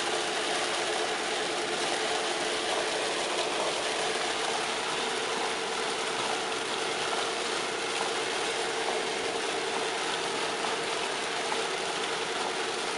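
Steady engine and road noise heard from inside a moving car: a constant low hum under an even hiss, with no sudden sounds.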